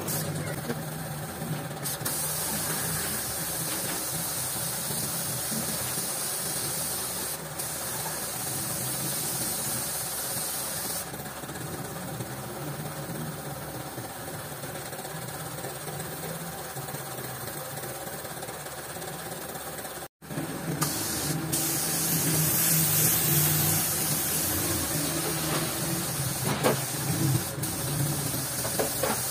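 Compressed-air paint spray gun hissing in spells as a silver coat is sprayed on, louder in the last few seconds, over a steady motor hum.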